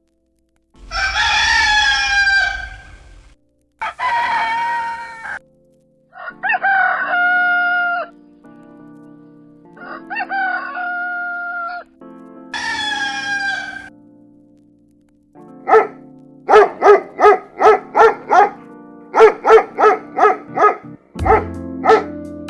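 Rooster crowing: five long cock-a-doodle-doo calls, one after another. These are followed by a quick run of about a dozen short, sharp calls, roughly two a second.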